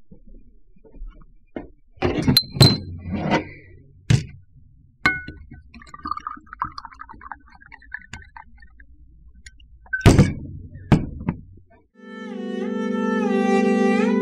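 Glass bottles and a shot glass knocking and clinking on a tabletop, with liquor poured into the glass in the middle. Music of long held notes comes in near the end.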